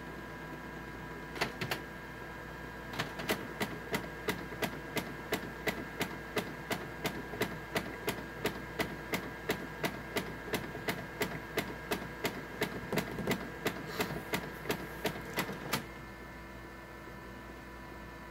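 Canon imageCLASS MF733Cdw colour laser printer clicking while it runs its correction cycle. There are two clicks, then a steady run of about three clicks a second that stops shortly before the end. The owner ties this clicking to prints that come out skipping lines.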